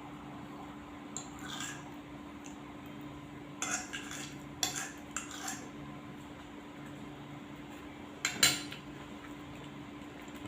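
A fork or spoon clinking and scraping against a plate while cake is eaten: a few short clinks scattered through, the loudest near the end.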